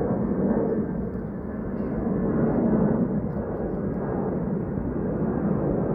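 Airplane flying over, a steady low-pitched noise that eases slightly and then swells again.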